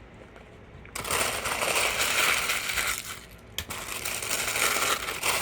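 Paper food wrapper being handled and crinkled close to the microphone. It starts suddenly about a second in, with a short break past the middle.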